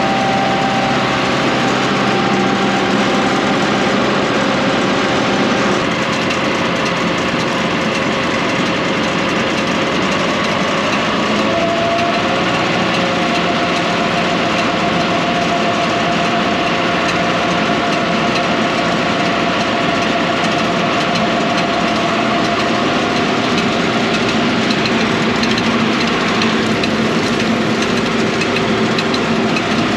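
Tractor engine running steadily at working speed to drive an air blast at a combine, with a whine that shifts up a little about twelve seconds in.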